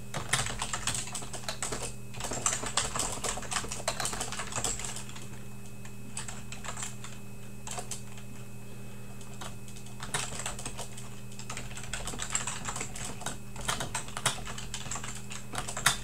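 Typing on a computer keyboard: two spells of quick key clicks with a few seconds' pause between them, over a steady low hum.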